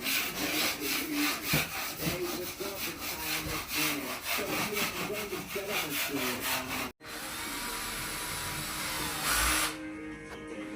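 Fast, even back-and-forth scraping strokes of a hand tool on wood, several a second. About seven seconds in they cut off abruptly, and a steadier whirring noise follows.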